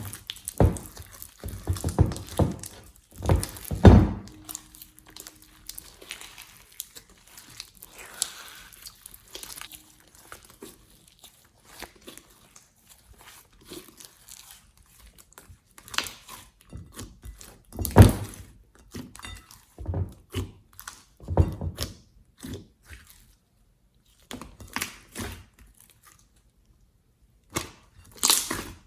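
Slime being squeezed and poked by hand: irregular sticky clicks, pops and crackles with a few louder thunks.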